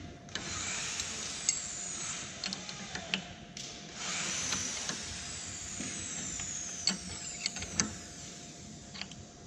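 Wrench tightening the spindle nut onto the collet of a CNC router spindle: two stretches of metal-on-metal scraping, with scattered sharp clicks.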